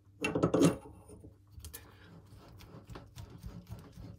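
Old steel propeller shaft being worked out of a boat's stuffing box by hand: a loud metallic scrape near the start, then a run of small clicks and scrapes as the shaft slides.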